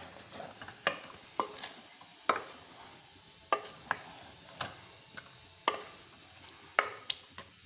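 Spoon stirring chicken and green beans in a metal cooking pot. About ten sharp, irregularly spaced knocks and scrapes against the pot, over a faint sizzle.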